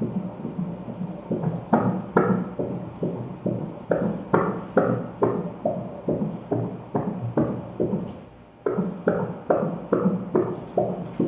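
Fetal heartbeat played through an ultrasound machine's Doppler: a fast, regular whooshing pulse at about two and a half beats a second, fading briefly about eight seconds in before it returns.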